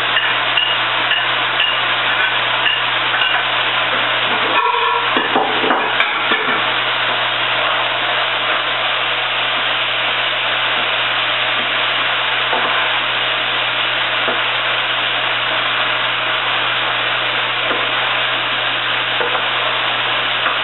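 Sausage, chicken, bell peppers, mushrooms and onions sizzling steadily in a pan over high heat, with a few clicks and clatters of a utensil stirring the pan about five seconds in.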